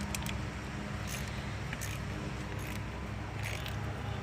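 Light metallic clinks and scrapes of a wrench working a car battery terminal clamp as it is tightened down, a few irregular ticks over a steady low hum.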